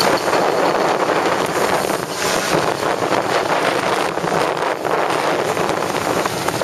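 Strong wind buffeting the microphone on a boat out on open water, a loud, steady rushing.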